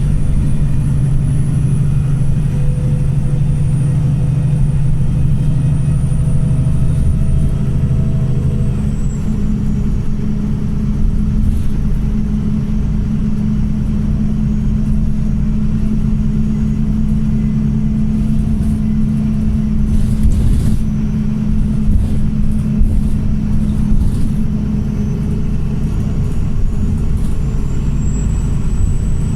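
Pulsar single-deck bus's diesel engine running under way at a steady loud level. Its note steps up in pitch about a third of the way in and drops back again near the end, with a faint high whine above it that shifts along with it.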